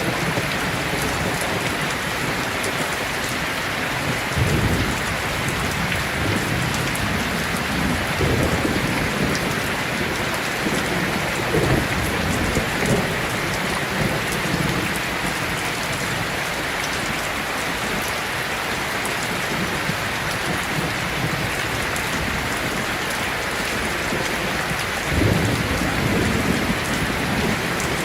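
Heavy rain falling steadily, with low rolls of thunder rumbling now and then, the strongest about three-quarters of the way through.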